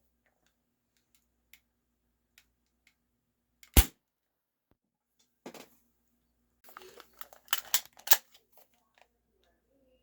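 Game Face Stinger P311 spring-powered airsoft pistol firing once with a sharp snap a little under 4 s in. Plastic clicks and rattles follow a couple of seconds later as the pistol is cocked for the next shot.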